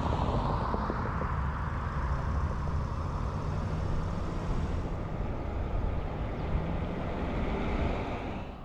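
A car driving past close by on the road, its tyre and engine noise loudest at the start and falling away, followed by steady road noise with a low rumble of wind on the microphone.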